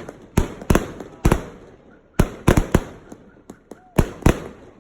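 Consumer multi-shot firework cakes firing, with about ten sharp bangs at irregular spacing, some in quick clusters of two or three, each trailing off briefly.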